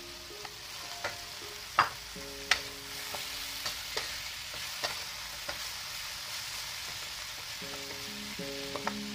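Dried squid, chilies and tomato stir-frying in a wok, sizzling steadily, with the spatula knocking and scraping against the pan several times, sharpest about two seconds in.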